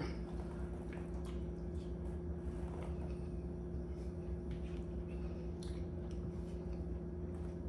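Someone eating a meal: soft chewing and a few light, scattered clicks, over a steady low hum from an appliance or fan.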